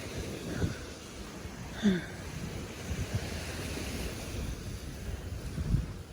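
Sea waves washing on a beach, with wind buffeting the microphone.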